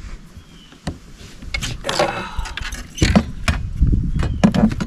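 A string of knocks, clicks and clattering rattles from a just-caught bass being handled and laid on a measuring board, busiest in the last two seconds.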